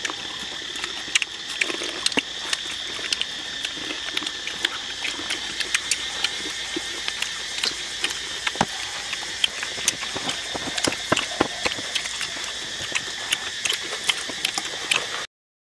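Crisp fried crickets crackling and rustling as fingers pick through them in a woven bamboo basket, a dense run of small sharp clicks. A steady high-pitched drone sits underneath, and the sound cuts off abruptly near the end.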